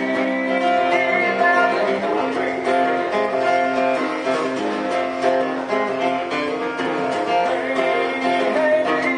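Acoustic guitar strummed in a steady rhythm, an instrumental passage of an old-time folk tune.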